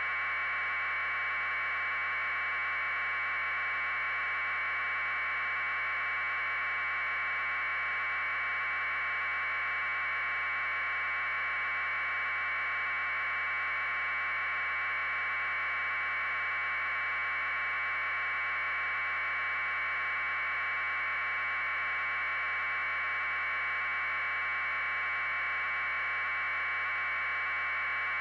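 Steady, unchanging hiss of electronic static, set in a narrow middle band of pitch, with no other sound.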